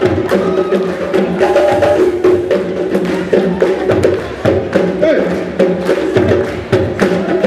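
Music with busy percussion: rapid sharp wood-block-like clicks over sustained pitched tones and a low pulse that recurs about every two seconds.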